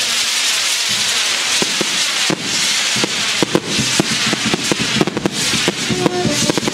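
Fireworks going off: a dense hissing crackle with many sharp pops, the pops coming thicker from about three seconds in.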